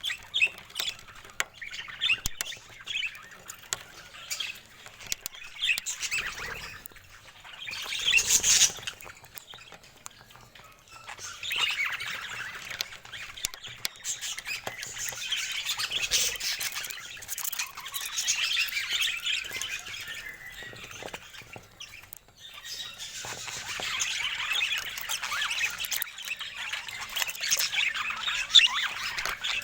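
Budgerigars chattering and warbling, with scattered short chirps at first and one loud squawk about eight seconds in, then near-continuous dense chatter for most of the rest.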